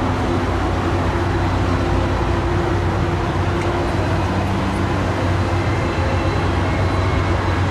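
Steady engine drone on an airport apron: a low hum with a faint high whine above it, from aircraft and ground-vehicle engines.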